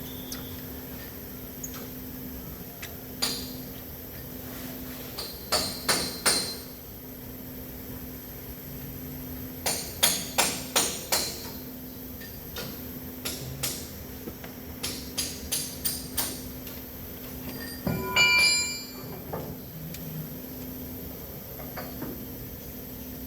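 Metal tools and parts knocking and clinking in quick clusters of sharp taps, with one ringing metallic clank about eighteen seconds in.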